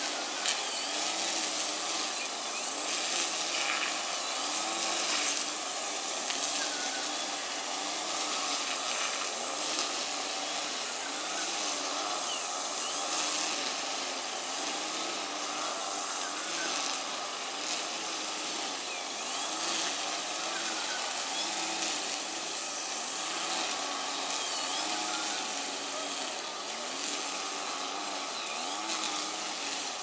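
Backpack brush cutter's engine running steadily, its pitch rising and falling every second or two as it is swung through the grass, over a steady hiss. A few faint bird chirps.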